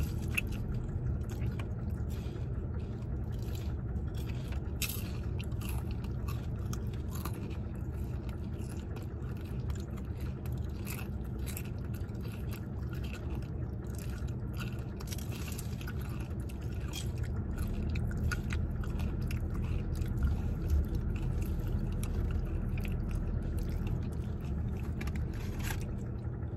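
Close-up chewing and crunching of a crispy fried spring roll (turon/lumpia wrapper), many short crackles one after another over a steady low rumble.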